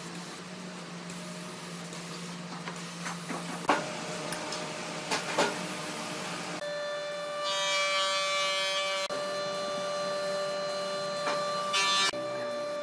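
Workshop sounds: a low steady hum with a few knocks, then a small electric motor starting a steady high whine about six and a half seconds in, which runs on with a brief dip partway.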